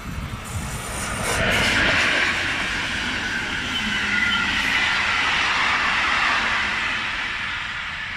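Passenger train hauled by a Škoda 69Er electric locomotive passing at speed, its wheels running on the rails. The noise swells about a second in, stays loud with a thin high tone over it through the middle, and fades as the coaches draw away.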